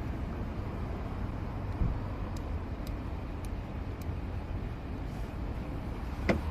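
Faint metallic clicks of lock picks working a stiff pickup-truck door lock: a few light ticks spaced about half a second apart, then a sharper click near the end. Under them runs a steady low rumble of traffic.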